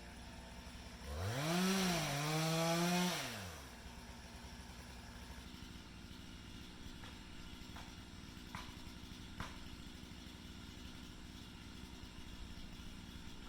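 Two-stroke chainsaw revved up for about two seconds, about a second in, then dropping back to a steady idle with a few faint knocks.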